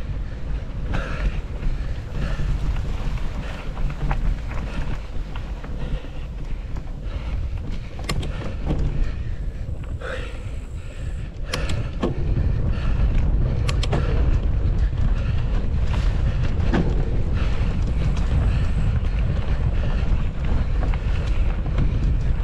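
Wind buffeting an action camera's microphone on a moving mountain bike, with scattered clicks and rattles from the bike over the trail. The wind noise grows louder about halfway through.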